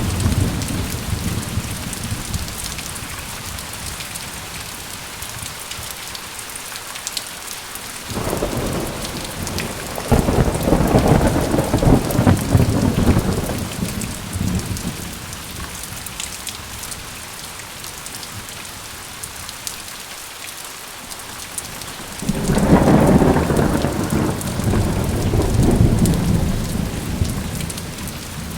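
Steady heavy rain hissing, with rolls of thunder: one fading out at the start, a long rumble building about a third of the way in, and another that breaks suddenly near the end and rolls away.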